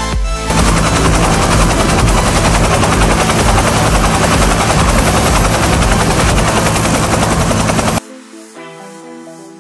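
Loud, steady helicopter-like rotor chopping noise that cuts off suddenly about eight seconds in, leaving soft background music.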